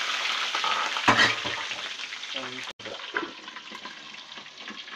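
Chilies, shrimp paste, onions and red pepper sizzling in hot oil, with scattered popping spatters. The sizzle is loudest in the first second or so, breaks off briefly about three seconds in, and goes on a little quieter.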